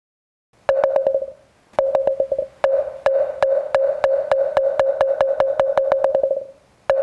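Moktak (Korean Buddhist wooden fish) struck in quick runs of hollow, pitched knocks: two short runs, then a long even run of about five knocks a second. This is the moktak roll that opens a Buddhist chant before the voice comes in.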